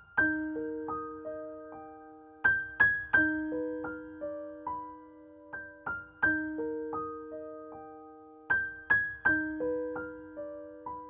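Slow, gentle piano music: single notes and soft chords struck and left to ring and fade, in a phrase that repeats about every three seconds.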